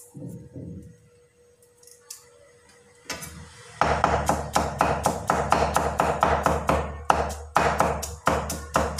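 Chinese cleaver chopping peeled garlic cloves on a round chopping board: quick, even chops, about four a second, starting about four seconds in.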